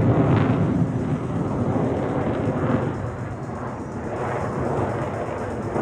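Jet noise from a Marine Corps F-35B's Pratt & Whitney F135 engine in flight: a loud, rough roar that eases off over the first three seconds and then holds steady.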